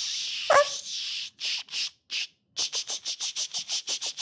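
A hissing rush with a short squeak in it, then quick rhythmic panting, about six breaths a second, like a dog panting, voiced as a cartoon sound effect.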